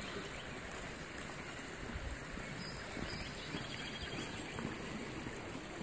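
Steady rushing of a creek flowing alongside.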